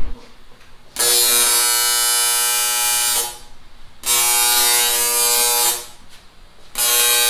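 Welding arc on the seam of a shortened cast-aluminium LS oil pan, struck three times in a row and cut off abruptly each time. Each stretch is a steady, even buzz with hiss.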